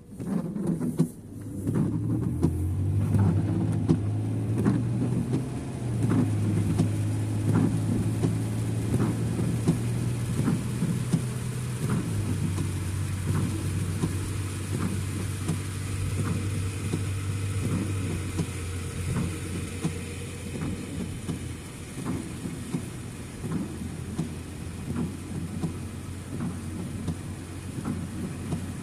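Car driving on a wet road, heard from inside: a steady engine hum and road noise, with the engine note shifting a couple of times and scattered light ticks of rain on the car.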